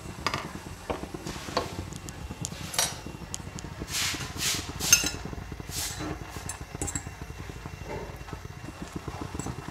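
A utensil clinking and scraping against a cooking pot as fiddlehead ferns are stirred: a few sharp knocks, with a louder cluster of scrapes about four to six seconds in, over a steady low rumble.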